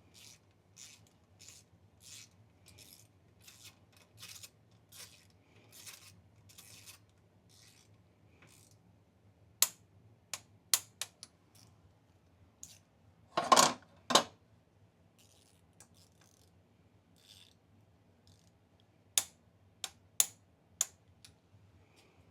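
Ratchet wrench turning motorcycle fork clamp bolts in short, even rasping strokes for about seven seconds. Scattered sharp metallic clicks follow, the loudest pair about halfway through, as the bolts are brought to torque.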